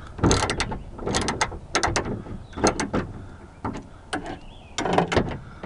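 Socket ratchet wrench clicking in short runs of quick clicks as it is swung back and forth, backing out a screw in a car door.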